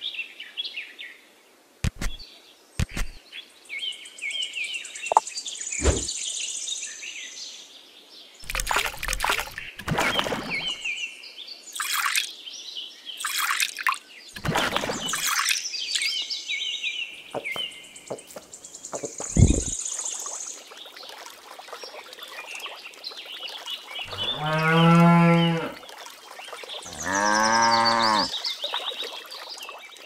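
Cow mooing twice near the end, two long calls that rise and fall in pitch. Before them come scattered knocks and rustles, with high chirping behind.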